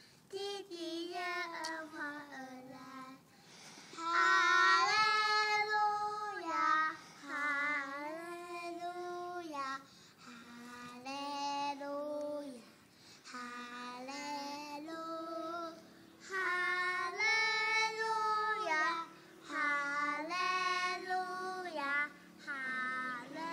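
Young girls singing a song, phrase by phrase with held notes and short breaks for breath between lines.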